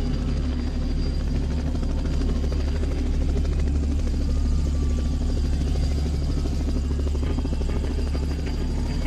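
A loud, steady low engine drone with a constant hum that does not change.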